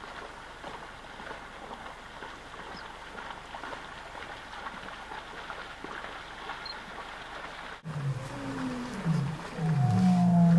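A steady, faint background hiss, then from about 8 seconds in a lion roaring: a run of loud, low, deep grunts that fall in pitch, coming under a second apart and growing louder.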